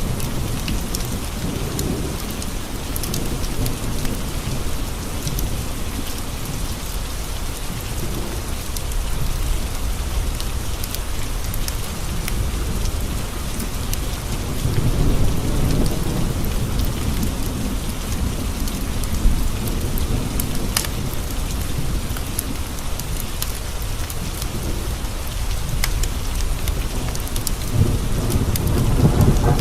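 Steady rain pattering on window glass, with low rolling thunder that swells up near the start, about halfway through and again near the end. Scattered sharp ticks sit on top of the rain.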